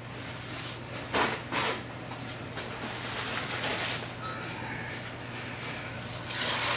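Paper towel rustling as it is handled, with two short louder rustles about a second in, then a wad of paper towel rubbing oil around the inside of a cast iron wok near the end, all over a steady low hum.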